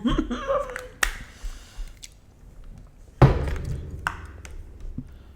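Takeout breakfast food and containers being handled on a table: a sharp click about a second in, then a heavier thump about three seconds in, with a few small ticks.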